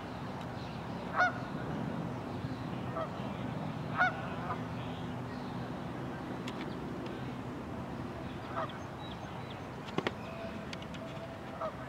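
Canada geese honking: a series of short calls, about six, the loudest about one and four seconds in, over a steady low background rumble. A sharp click comes near the end.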